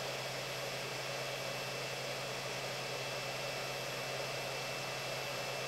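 Electric space heater running on low on modified sine wave power from a power inverter: a steady rushing noise with a low, even hum underneath. The buzz comes from the inverter's modified sine output.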